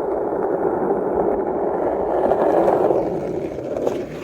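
Skateboard wheels rolling over street pavement, a steady rumble that swells about two-thirds of the way through and starts to fade at the very end.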